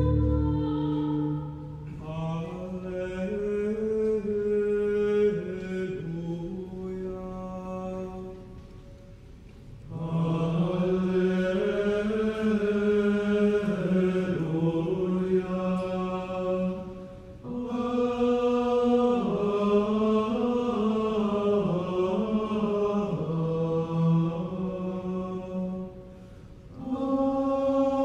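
A male choir singing chant-like sacred music in long phrases, with brief pauses between phrases about nine, seventeen and twenty-six seconds in.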